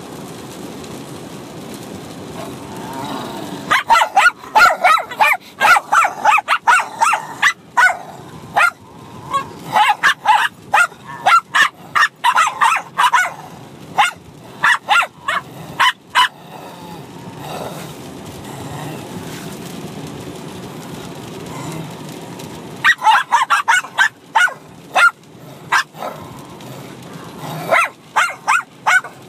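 Two Bichon Frise dogs, a puppy and an older dog, barking and yapping at each other while play-fighting. A long run of rapid, sharp barks starts about four seconds in and lasts some twelve seconds, followed by two shorter volleys near the end, with a low steady rumble in the pauses.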